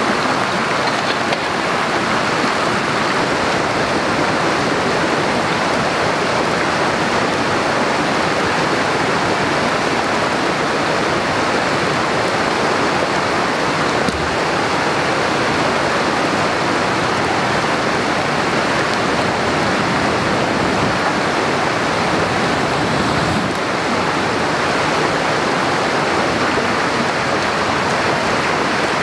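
Steady rushing of water, even and unbroken.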